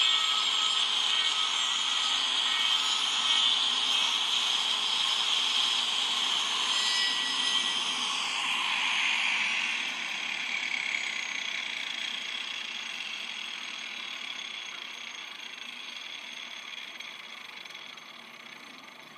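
Electric angle grinder grinding a wooden hoof block glued to a cow's claw, taking material off the block's toe to give it a curved, angled front. About ten seconds in it is lifted off the wood and its sound drops in pitch and slowly fades as the disc winds down.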